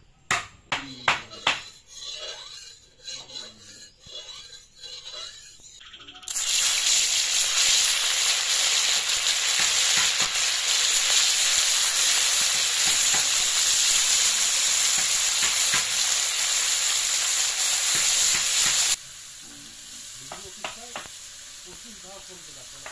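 Small sor puti fish sizzling loudly in hot oil in an aluminium kadai. The sizzle starts abruptly about six seconds in, after a few knocks, and cuts off about nineteen seconds in. A quieter sizzle with light stirring clicks follows.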